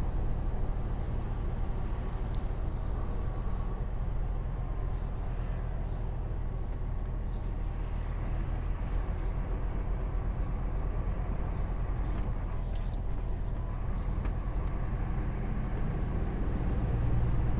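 A lorry's diesel engine running steadily on the move, heard from inside the cab as a low, even drone, with a few faint clicks.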